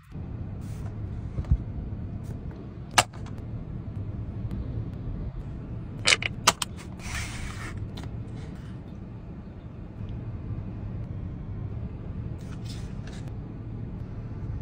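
Car engine idling, a steady low rumble heard inside the cabin, with a few sharp clicks about three and six seconds in and a short rustle just after the second ones.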